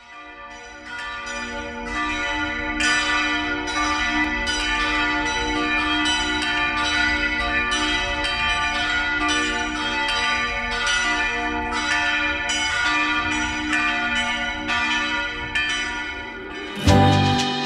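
Church bells pealing, struck over and over with long ringing tones, fading in at the start. Near the end, loud music with heavy drum beats cuts in.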